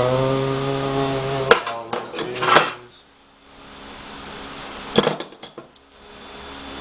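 Metal hand tools clinking and clattering as they are handled and set down, in two clusters of sharp clicks: one about a second and a half in, another about five seconds in. A low, steady hum runs for the first second and a half.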